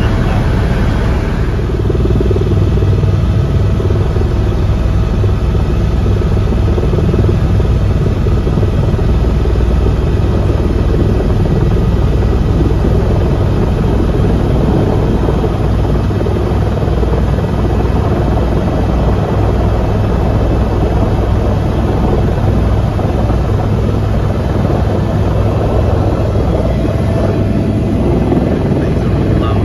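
Helicopter rotor and engine noise heard from inside the cabin: a loud, steady low drone as the helicopter descends to land.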